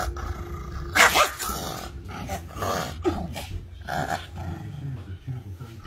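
Small Pomeranian growling, with a series of short, sharp yaps on top; the loudest yap comes about a second in.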